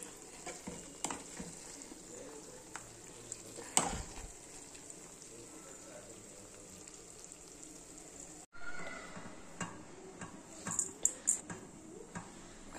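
Chicken curry sizzling in a pan while it is stirred, a faint steady hiss with scattered knocks and scrapes of the spatula against the pan. The sound cuts out for a moment about eight and a half seconds in.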